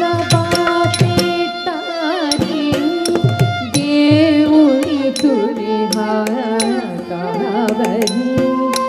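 Carnatic classical music for a Bharatanatyam varnam: a melody line, likely sung, over a steady drone, with frequent sharp drum strokes.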